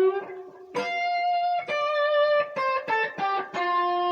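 Guitar playing a blues lick in D: a held note rings out, then single notes come down the minor pentatonic, and near the end a slow bend starts from the minor third, rising toward the 4th.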